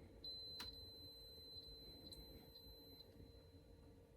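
Faint clicks of a Levoit 6L humidifier's control buttons being pressed to set the humidity, one sharp click about half a second in and lighter ticks after it, over a faint steady high whine.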